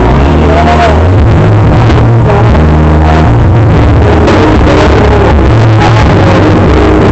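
Loud dance music with heavy bass and a steady beat, played over a festival sound system.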